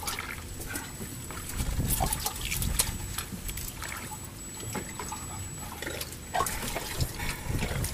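Sea water sloshing and lapping against a boat's hull, with scattered small clicks and knocks.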